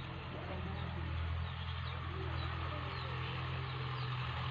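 A tractor engine runs with a faint, steady low drone. Short, high bird chirps come over it now and then.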